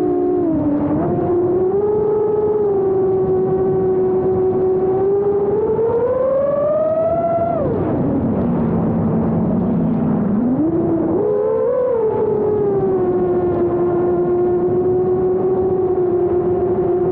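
Brushless motors of a 5-inch FPV freestyle quadcopter on a 6S battery, whining steadily. The pitch climbs about six seconds in, drops sharply to a low drone for about three seconds, then spools back up with a brief blip and holds steady.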